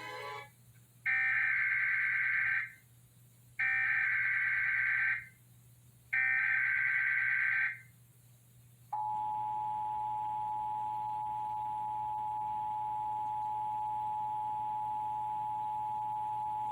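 Emergency Alert System signal announcing a Tornado Watch: three short bursts of digital SAME header data tones, then the steady two-tone attention signal held for about eight seconds.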